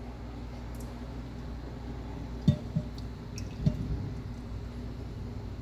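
A few muffled knocks and bumps of things being handled on a counter, over a steady low hum.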